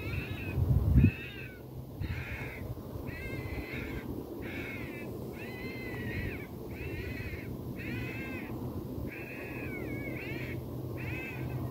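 FoxPro electronic fox caller playing a recorded vixen-on-heat call from about 100 yards off: a steady run of short, arching cries at about one a second. A low bump about a second in.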